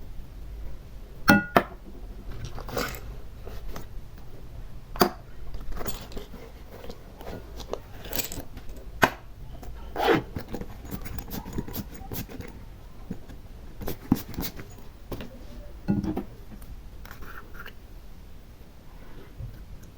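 Small hard decorations and slime being handled: scattered sharp clicks and taps with scraping and rustling between them, the loudest clicks about a second in and again around five, eight to ten and sixteen seconds.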